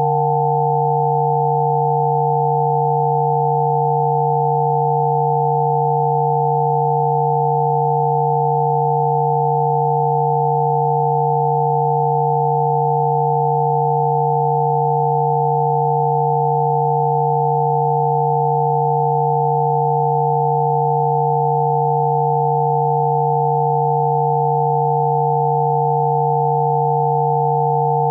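Electronically generated sine tones of a Spooky2 Rife frequency set: one low tone, one in the middle and a close group of higher tones, all held steady together without any change.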